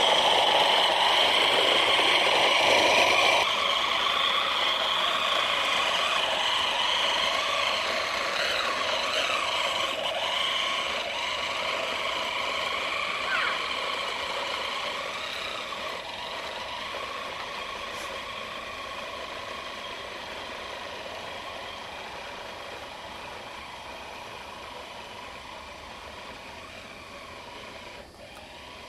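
LGB G-scale model diesel shunter running along garden railway track, its electric motor and wheels whirring with a steady hum. The sound fades gradually as the train moves away.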